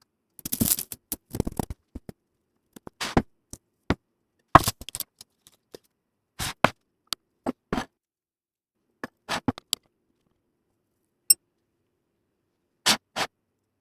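Scattered short scrapes and clicks of kitchen utensils handling food, a dozen or so separate strokes with silent gaps between them.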